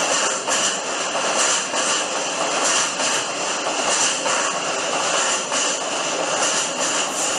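Freight train passing through a station platform without stopping: a steady loud rolling rush of wheels on rails, with a faint repeating clatter.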